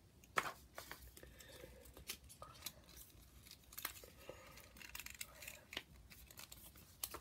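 Plastic parts of an S.H. Figuarts Piccolo action figure clicking, snapping and scraping as they are handled and pulled apart, with a sharper click about half a second in.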